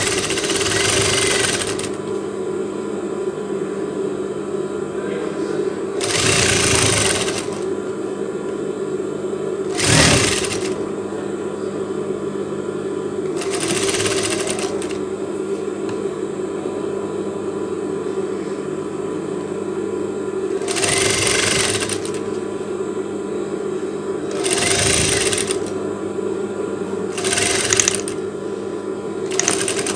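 Industrial sewing machine sewing lace trim onto a garment edge: its motor hums steadily, and every few seconds there is a louder stretch of stitching lasting a second or two.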